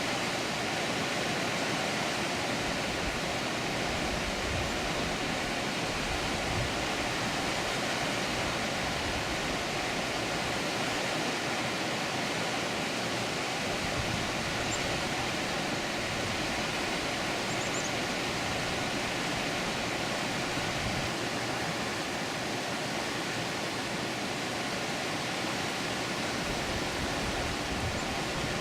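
Water pouring steadily over a dam, a continuous even rush.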